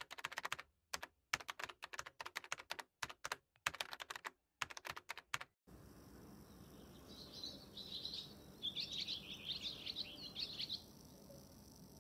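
Computer keyboard typing sound effect: quick runs of key clicks with dead silence between the runs. It stops sharply about six seconds in. A quiet background follows, with small birds chirping high, in two bouts.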